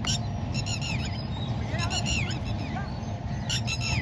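Bird calls: short, high, sharp notes in quick clusters of three to five, repeated about four times, over a low steady rumble.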